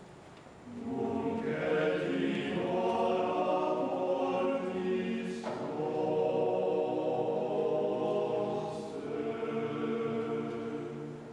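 A men's choir chanting in Latin, plainchant style, beginning about a second in and dying away near the end.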